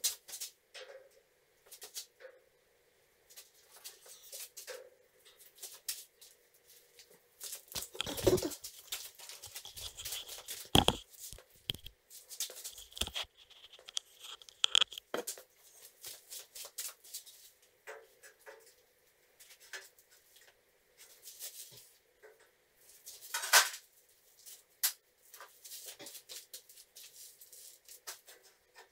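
Irregular clicks, taps, scrapes and rustling from handling metal drywall studs and tools against a wall, with several sharper, louder knocks scattered through.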